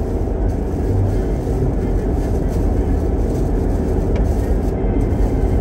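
Steady tyre and engine noise heard inside a car's cabin while cruising at motorway speed, an even low rumble.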